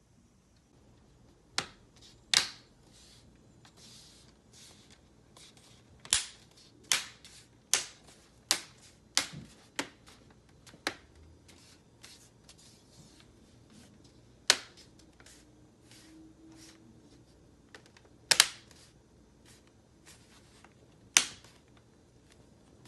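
Plastic display bezel of a Lenovo IdeaPad 330 17-inch laptop snapping back onto the screen: about a dozen sharp clicks at irregular intervals as its clips latch into place around the edges.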